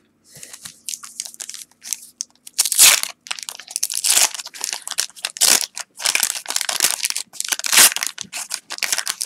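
Waxed-paper wrapper of a 1989 Topps football card pack being torn open and peeled off the cards, crinkling and crackling in irregular bursts, with a few louder crackles spread through.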